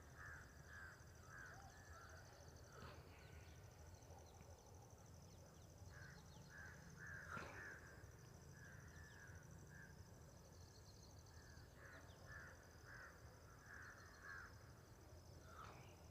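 Faint bird calls: runs of short, quickly repeated notes in three bouts, near the start, around the middle and near the end, over a steady high-pitched drone.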